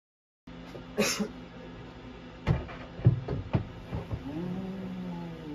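A handful of hollow knocks and bumps as a large plastic barrel is handled against a flat-pack cabinet frame, followed by a drawn-out wavering sound.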